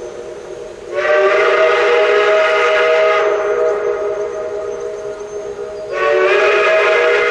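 Steam whistle of Shay No. 5, a 1905 geared steam locomotive, sounding a steady chord of several notes without a break. It swells louder about a second in, eases back around three seconds, and swells again about six seconds in.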